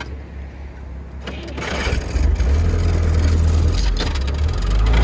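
GAZ-69A's four-cylinder side-valve petrol engine, its crankshaft newly replaced, running under load as the jeep drives off-road, its revs and loudness climbing from about two seconds in.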